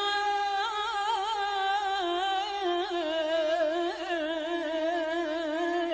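Arabic song recording: one long, unbroken melodic line with vibrato and quick ornamental turns, with no lyrics sung.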